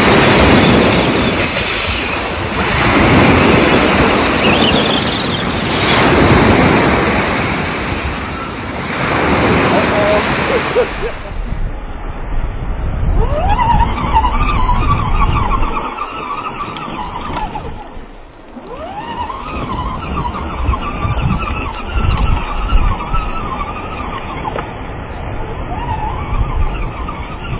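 Surf breaking and wind buffeting the microphone, in swells about every three seconds. Then, after a cut, an RC monster truck's motor whines, rising and falling in pitch as it speeds up and slows down over the beach, with rumble from its wheels on the gravel.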